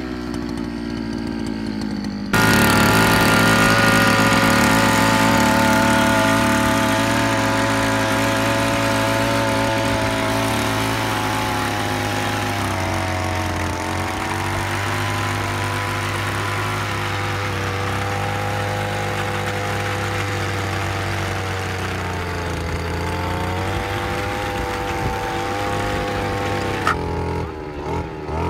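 Brush cutter's small engine running under load while driving a rotary tiller attachment through soil: a steady engine note that gets abruptly louder about two seconds in, dips in pitch now and then as the tines bite into the ground, and drops in level near the end.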